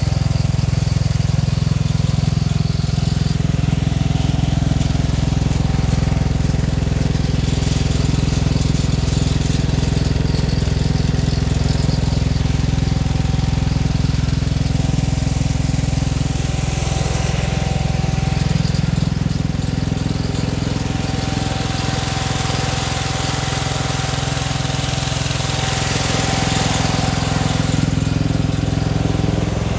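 An engine running steadily at one constant speed throughout, with a faint steady whine on top.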